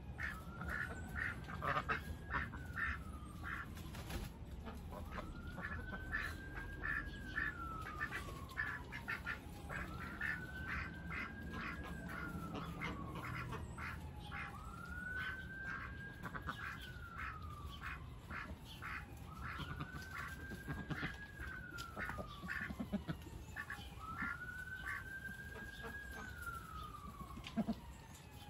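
Ducks quacking in runs of short repeated calls, over a siren that wails in slow cycles, rising, holding and falling about every five seconds.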